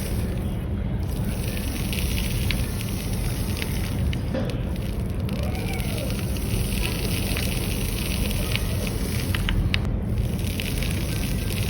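Water washing over sand: a steady rushing noise flecked with many small crackling clicks.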